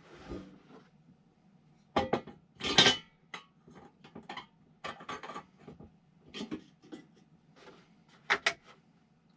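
Dishes and utensils being handled: a string of clinks, knocks and light rubbing, with the loudest clatter just under three seconds in and another pair of sharp knocks near the end.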